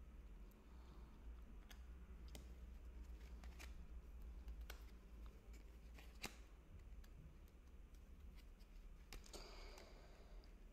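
Near silence with faint clicks and light taps of tarot cards being handled, picked up and laid down on a table, and a soft sliding rustle near the end.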